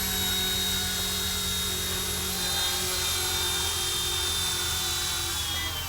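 Firefox C186 RC helicopter's electric motor and rotor spinning, a steady whine over a low hum, with the pitch falling slightly near the end as it is brought down.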